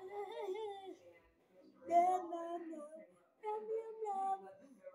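A child singing in long, wavering held notes, with brief pauses about one and three seconds in.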